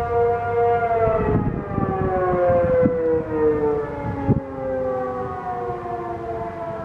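ACA P-50 tornado siren sounding a steady tone that begins to fall about a second in, its pitch sliding slowly down: the siren winding down.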